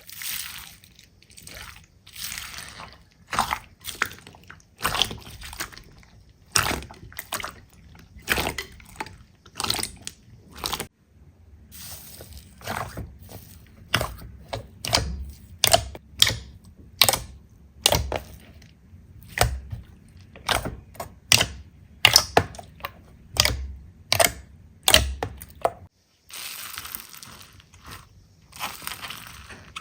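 Slime being pressed and squished by hand, making a string of short wet pops and clicks, roughly one or two a second, with a couple of brief breaks.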